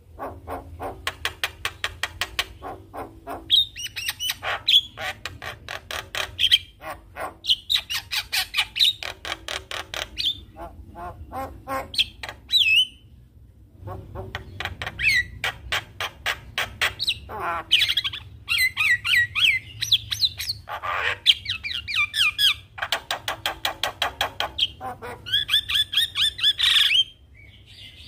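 Javan myna (jalak kebo) singing in full, varied song: fast runs of clicking notes mixed with whistled glides and harsh squawks, with a short pause just after the middle.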